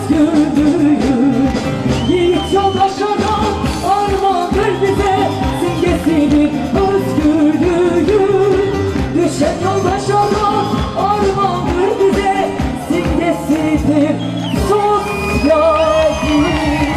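Live band music with a singing voice over a steady beat.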